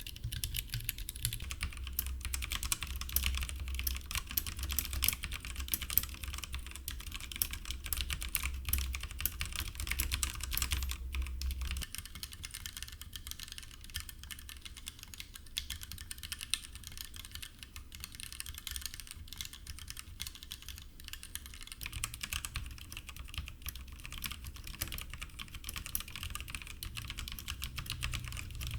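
Typing on a Logitech G PRO X mechanical keyboard: a steady stream of rapid keystrokes. The character of the sound changes about twelve seconds in and again near twenty-two seconds.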